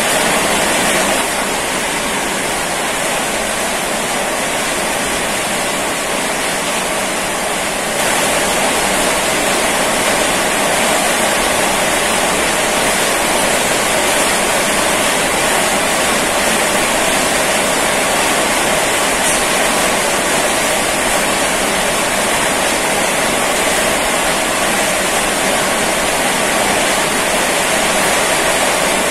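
Heavy rain falling steadily, a dense even hiss, a little softer for the first several seconds.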